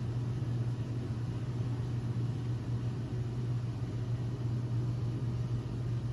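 A steady low mechanical hum that holds level and pitch throughout.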